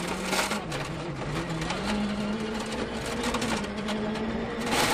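Ford Fiesta RS WRC rally car's 1.6-litre turbocharged four-cylinder engine running at speed. Its note rises a little about two seconds in and then holds steady, over a rattle of sharp clicks.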